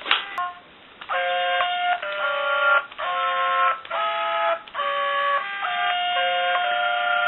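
A click, then from about a second in a Sing-a-ma-jig plush toy sings a tune of held electronic notes that step up and down in pitch, with short breaks between phrases.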